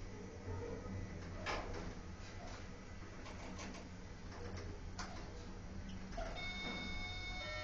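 Elevator car of an Elitec machine-room-less traction lift travelling down: a low steady rumble of the moving car with a few clicks and knocks. About six seconds in, a steady whine of several high tones sets in and keeps going.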